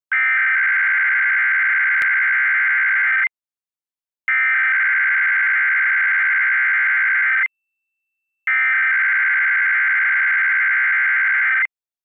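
Emergency Alert System SAME header: three bursts of digital data tones, each about three seconds long with about a second of silence between them. They encode the alert header announcing a Required Weekly Test.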